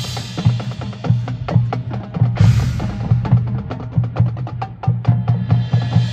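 Marching band percussion playing a rhythmic, drum-heavy passage: rapid sharp clicks and drum strikes over a steady low drum pulse, with a loud crash about two and a half seconds in.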